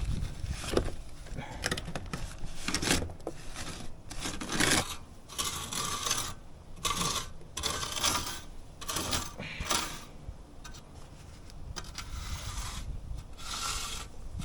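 Irregular rubbing and scraping noises in short strokes of about a second each, with brief gaps between them.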